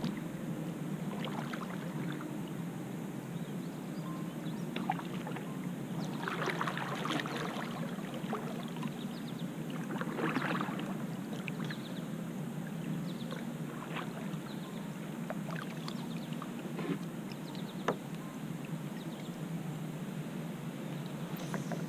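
Kayak paddle strokes in calm lake water: the blade dipping and splashing now and then, with a few light clicks, over a steady low background hiss.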